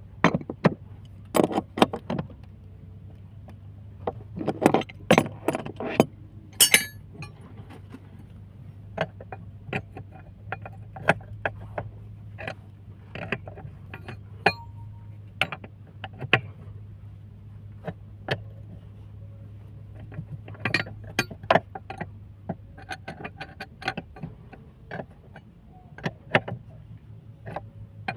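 Irregular metallic clinks and knocks of tools and pipe parts being handled, some in quick clusters, over a steady low hum.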